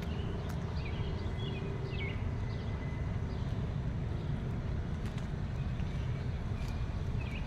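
Outdoor ambience: a steady low rumble with short high bird chirps scattered through it.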